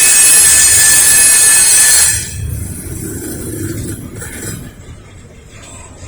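Freight train's steel wheels squealing loudly on the track, a high-pitched squeal that cuts off suddenly about two seconds in. A lower rumble of the rolling cars follows.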